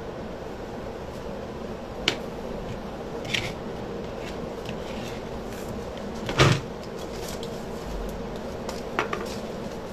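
Craft supplies being handled and set down on a work table: four short knocks and clatters, the loudest about six and a half seconds in, over a steady low hum.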